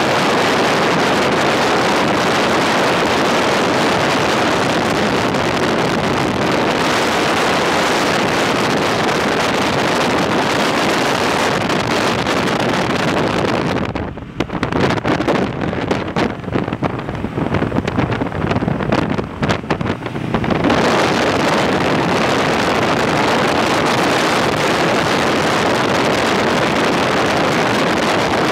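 Wind rushing over the microphone from a car driving at road speed, mixed with road and engine noise. For about six seconds in the middle the rush drops away and a lower, uneven rumble comes through, then the steady wind noise returns.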